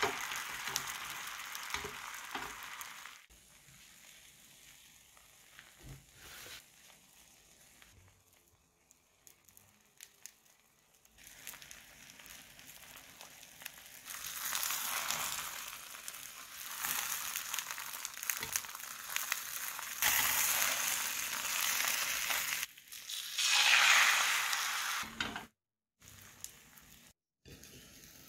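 Beaten egg sizzling in a hot frying pan. The sizzle fades to a low hiss for several seconds, then comes back louder and peaks near the end, broken by a couple of brief silent gaps.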